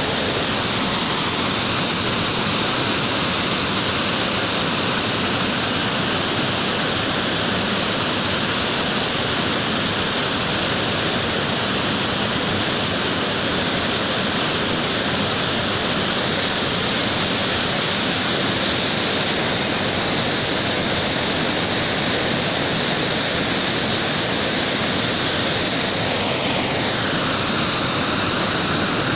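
River rapids: whitewater rushing over rocks, a loud, steady noise close by.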